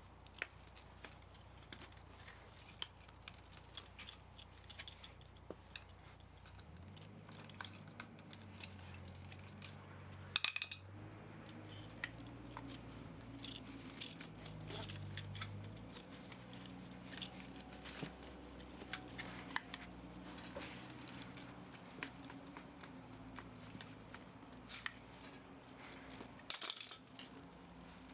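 Scattered light clicks and snips of hand tools working on an electric pump motor, stripping it for its copper and aluminium, with a louder flurry of clicks about ten seconds in. From about six seconds in, a low hum in several steady tones joins.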